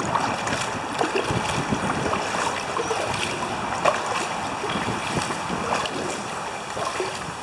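Steady rush of freeway traffic on the bridge overhead, with light splashes of a kayak paddle in the river.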